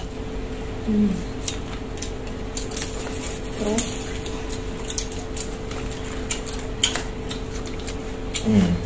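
Scattered light clicks and taps of crab shell and utensils against plates while steamed crab is picked apart and eaten, over a steady low hum.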